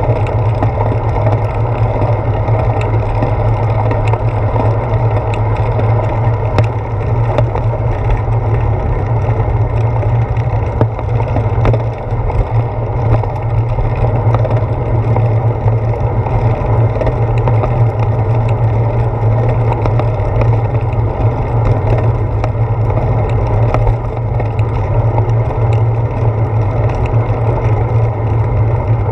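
Steady wind and road rumble of a moving bicycle, picked up through a handlebar-mounted GoPro Hero 4, with a constant low drone and many small rattling ticks from the bike.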